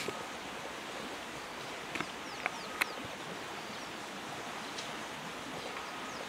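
Bush ambience: a steady hiss, with a few sharp clicks about two to three seconds in and faint, short, falling high chirps.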